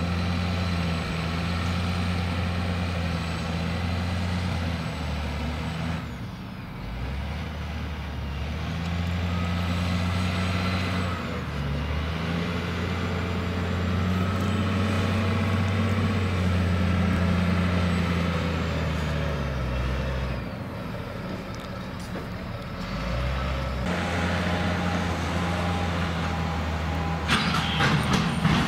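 Ballast unloading train's heavy engine running steadily, its speed stepping up and down several times, with a clatter of metal near the end.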